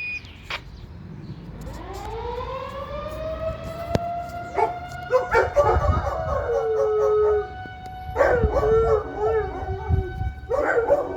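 Federal Signal 2001-130 electromechanical outdoor warning siren winding up: one rising tone that levels off into a steady wail. From about four seconds in, dogs howl along in wavering pitches over it.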